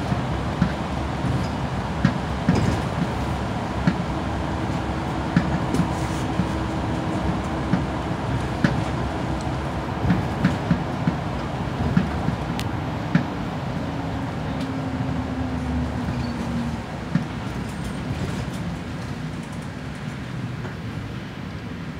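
Mercedes-Benz Citaro O530G articulated bus under way, heard from inside: a steady engine and road rumble with frequent knocks and rattles from the body, and a drone that drops in pitch about halfway through. The sound quietens toward the end as the bus slows.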